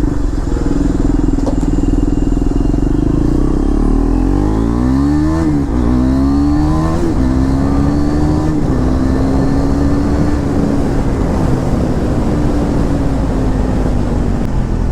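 KTM Duke 390's single-cylinder engine through an SC-Project full-system aftermarket exhaust, running loud under way. About four seconds in it accelerates, the pitch climbing through two upshifts, then it settles into a steady cruise.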